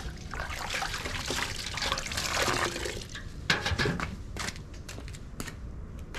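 Water splashing and pouring for about three seconds, followed by several sharp knocks and clicks.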